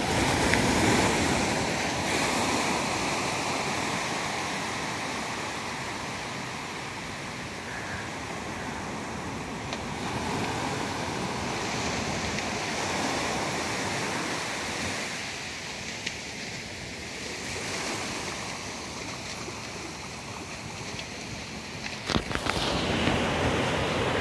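Small Pacific waves breaking and washing up the beach, the surf swelling and fading in slow surges. A few sharp clicks near the end.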